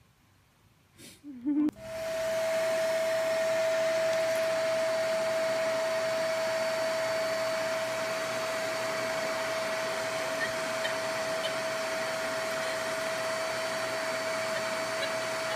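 Vacuum cleaner starting to be heard about two seconds in, after a brief short sound, then running steadily: a rush of air with a constant whine.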